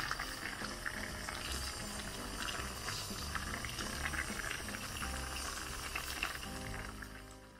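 Kimchi stew bubbling at a boil in a small pot, a dense crackle of popping bubbles, with background music under it; it fades out near the end.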